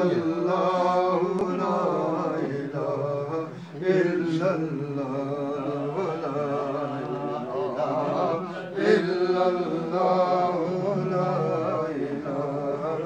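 Men's voices chanting a devotional recitation, several voices overlapping in a continuous melodic chant, with a brief dip just before four seconds in.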